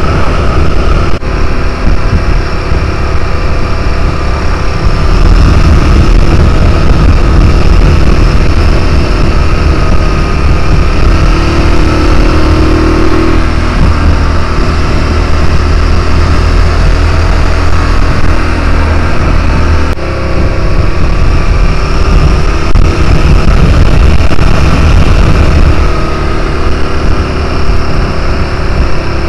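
Adventure motorcycle engine running at road speed, its note rising and falling a little with the throttle through the curves, under a steady rush of wind noise, with a brief dip about twenty seconds in.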